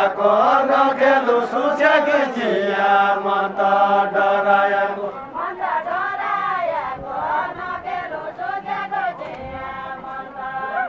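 A group of men singing a Nepali deuda folk song together in a chanted, droning melody. Phrases bend up and down into long held notes, and the singing is a little quieter in the second half.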